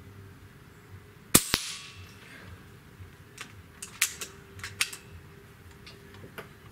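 AEA Challenger .25-calibre PCP air rifle fires a single shot: one sharp crack about a second and a half in, with a weaker crack right after it. A few light metallic clicks follow around four to five seconds in as the action is cycled for the next pellet.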